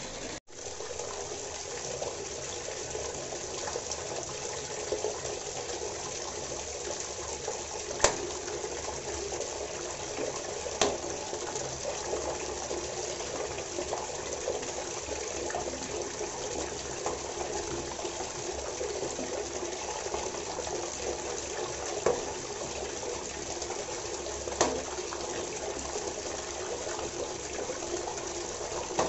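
Tap water running steadily into a wash basin, a continuous splashing rush, with a few short knocks or splashes standing out. The sound cuts out for an instant just after the start.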